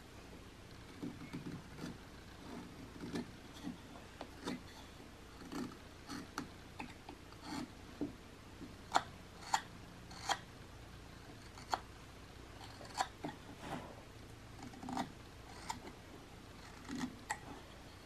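Small carving knife whittling a basswood figure: irregular short paring cuts and scrapes, each a brief snick of the blade through the wood, with a few sharper ones about halfway through.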